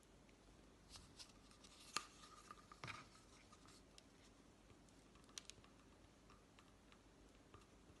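Mostly quiet, with a few light taps and scrapes as a spatula brushes honey onto a cardboard toilet roll tube. The sharpest tap comes about two seconds in, and a short cluster follows a second later.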